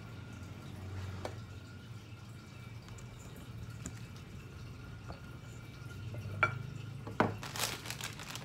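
Quiet room with a low steady hum and a few faint clicks. About six and a half seconds in come two sharp knocks as the stone pestle is set down on the wooden stand, the first with a short ring. Rustling of a plastic salt packet follows near the end.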